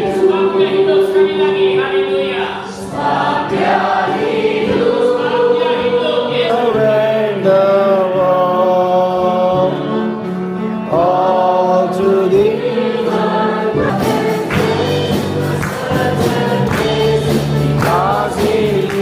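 Choir singing a hymn, with held, gliding sung notes over a steady low accompaniment. The sound changes abruptly about 14 seconds in.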